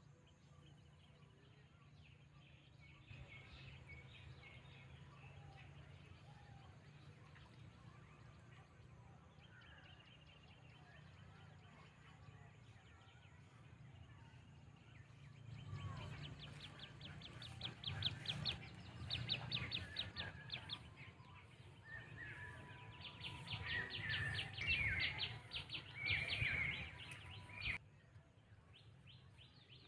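Birds chirping, faint at first, then louder runs of rapid repeated trilling notes and chirps in the second half that stop abruptly near the end. A low steady hum runs underneath.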